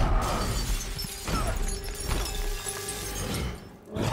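Large plate-glass window shattering as a heavy body crashes through it, with broken glass scattering and settling on a hard floor, over an orchestral film score. Loudest at the start, then it dies down shortly before the end.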